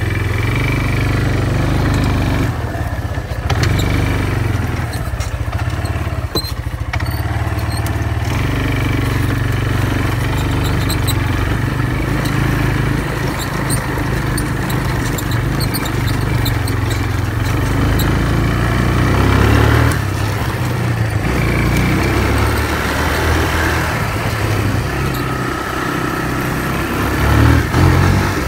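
ATV (four-wheeler) engine running under way while being ridden, its note rising and falling as the throttle changes.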